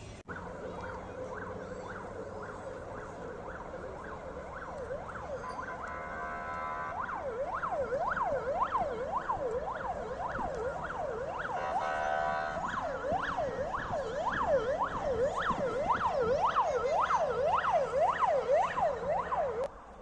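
Electronic siren of a Ford Transit private ambulance on the fast yelp tone, sweeping up and down about twice a second and growing louder as it approaches. It switches twice to a steady buzzing horn tone for about a second. The siren cuts off abruptly near the end.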